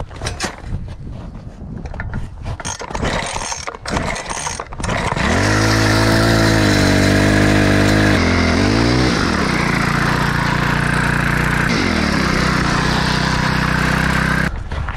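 Footsteps crunching on packed snow, then about five seconds in a small ice auger engine starts, runs revved high for a few seconds, blips up and down, and settles to a lower speed before cutting off suddenly near the end.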